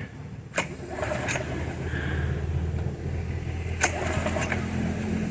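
Gas lawnmower's small engine pulled on the recoil starter about half a second in, then running with a steady low drone.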